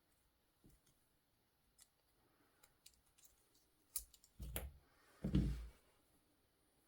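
Small plastic clicks and taps from a Fiat Stilo/Linea key remote being handled and worked open for its battery. There are a few scattered light clicks, a louder cluster of clicks about four seconds in, and a louder handling knock near five and a half seconds.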